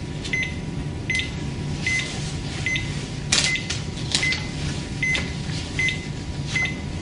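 Cardiac monitor beeping once per heartbeat: a short high beep repeating evenly about every 0.8 seconds, roughly 75 a minute. Some brief rustling of cables and clothing comes in the middle.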